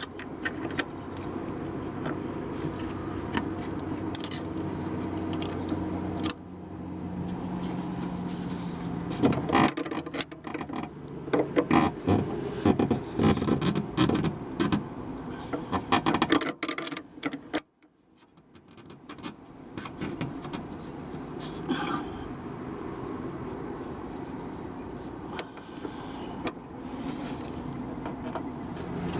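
Car running with a steady engine hum, with a spell of rattling and knocking in the middle. The sound cuts out abruptly a little over halfway and the running sound fades back in.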